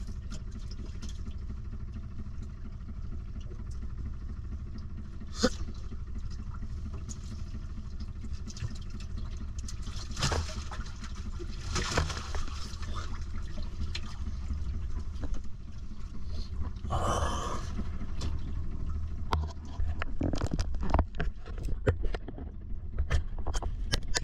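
Steady low hum of a boat motor, with scattered knocks, clicks and water splashing as catch is handled on deck, and a louder rushing splash about two-thirds of the way through.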